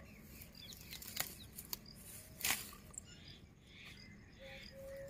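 Leafy weed stems rustling and snapping as they are picked by hand, with a few sharp snaps; the loudest comes about two and a half seconds in.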